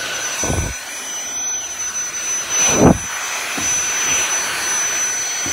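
Dyson cordless stick vacuum running steadily with a high whine, with two dull thuds, about half a second in and about three seconds in.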